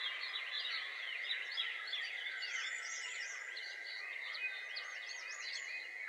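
Nature-sound track of many birds chirping at once in short, overlapping, sweeping calls, over a steady high thin tone.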